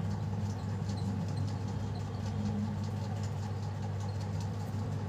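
Hot-air rework station running with its blower on: a steady low electrical hum under an even airy hiss.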